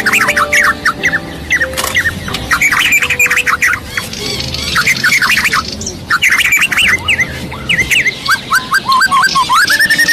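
Many birds chirping in rapid runs of short notes, over a low steady hum.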